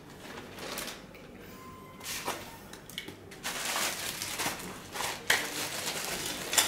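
Plastic bags crinkling and rustling as bagged wiring harnesses and accessories are picked up and handled, busiest in the second half, with a couple of sharp knocks near the end.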